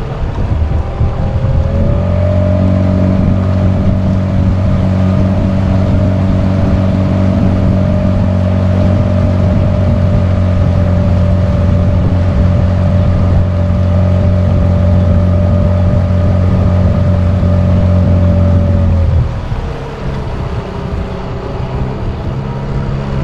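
Small tiller-steered outboard motor pushing an aluminium boat along at speed. Its note rises over the first two seconds, holds steady, and then drops to a lower, quieter running note about 19 seconds in.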